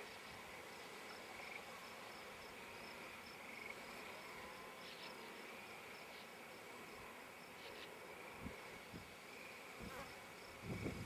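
Faint, steady high chirring of insects with a regular pulse, heard throughout. A few low thumps near the end.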